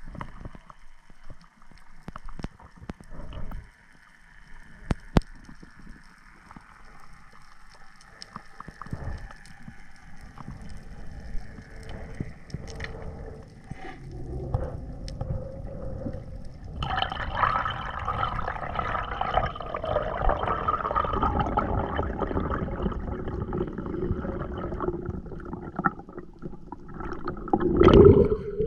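Underwater sound picked up by a camera in a dive housing: scattered clicks and a faint drone, then a louder droning hum with several steady tones from about halfway through. Near the end comes a loud splash as the diver breaks the surface.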